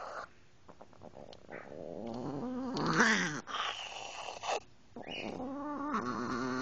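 A dog grumbling and growling in two long, wavering vocal stretches, the first starting about a second and a half in and the second near the end: a reluctant, talking-back grumble at being ordered to bed.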